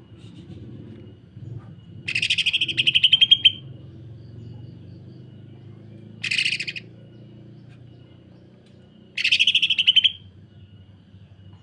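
Cucak ijo (greater green leafbird) giving three bursts of harsh, rapid-fire chattering notes, the tight rough "sewing machine" rattle. The first and last bursts are about a second long and the middle one is short. A faint low hum runs underneath.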